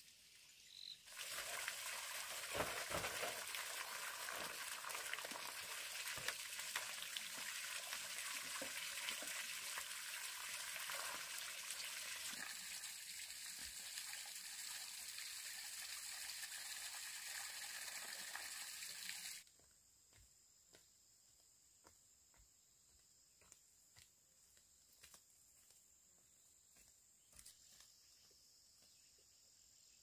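Outdoor ambience dominated by a dense, steady chorus of calling animals, insects or frogs, full of fine clicks. It starts about a second in and cuts off suddenly about two-thirds of the way through, leaving quiet background with scattered faint clicks.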